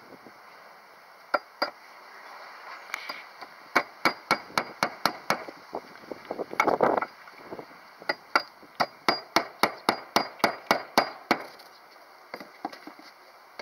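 Hammer nailing interlocking roof tiles down onto timber battens: two taps, then a quick run of sharp blows, a brief scraping clatter, and a longer run of blows at about four a second.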